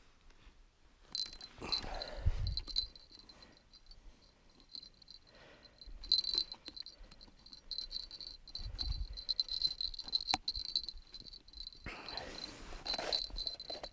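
Small bell on a winter ice-fishing tip-up jingling with a thin, high, wavering ring as the rig is handled and set over the ice hole, with glove and clothing rustles and light knocks of handling.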